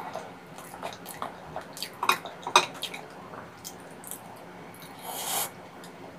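Close-up eating sounds: soft wet mouth noises of chewing steamed kabocha squash with melted cheese, and scattered light clicks of chopsticks against the squash and plate, two of them sharper a little after two seconds in. A short hiss comes about five seconds in.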